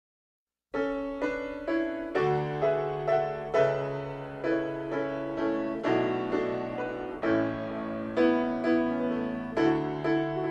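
Instrumental piano intro of a song: notes struck one after another about twice a second over held low bass notes, starting just under a second in.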